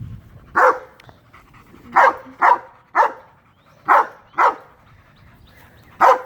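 Dog barking: seven short, loud barks, some coming in quick pairs.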